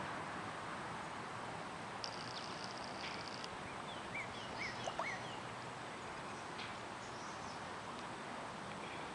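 Small birds chirping against a steady background hiss. A buzzy trill lasts about a second and a half, then several short rising-and-falling chirps follow, with a couple of faint sharp ticks about five seconds in.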